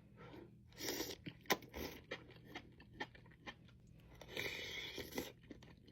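Close-miked chewing of a bite of seafood, with short wet mouth clicks and smacks and two longer crunching stretches, about a second in and again near the end.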